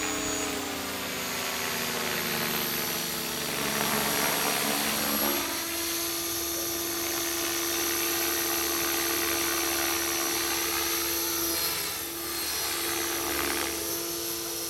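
Align T-Rex 500 electric RC helicopter in flight: steady motor and gear whine with rotor hum. The pitch slides down over the first five seconds, then holds steady.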